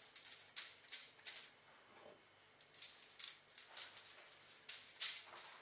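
Pinches of salt sprinkled by hand onto aluminium foil: the grains patter on the foil in several short, hissy bursts.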